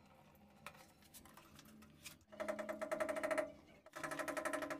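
Plastic threaded fitting of a flexible toilet-cistern connection hose squeaking in a rapid, buzzing chatter as it is screwed on by hand. It comes in two bursts: one about a second long a couple of seconds in, and a shorter one near the end.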